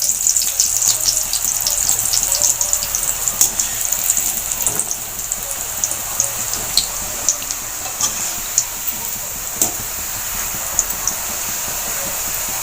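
Batter-coated peanut pakoras deep-frying in hot oil: a steady sizzle with many small crackles and pops. The crackles are thick for the first few seconds and thin out after about five seconds, as the pakoras near done.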